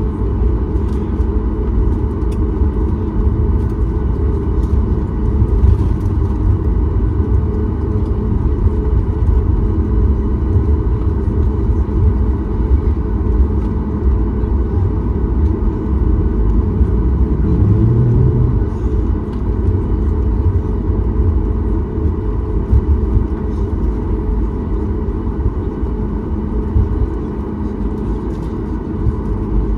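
Steady low cabin rumble inside a Boeing 737 MAX 8 taxiing after landing, its CFM LEAP-1B engines at idle, with a few faint steady tones above the rumble. There is a brief louder low hum about eighteen seconds in.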